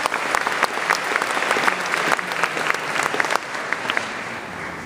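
Audience applause in a hall, many people clapping, tailing off slightly toward the end.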